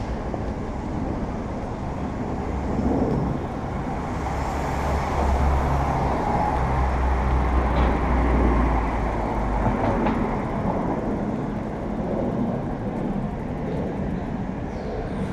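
Road traffic passing beside the sidewalk, with a heavy vehicle's low engine rumble swelling from about four seconds in and fading near nine seconds.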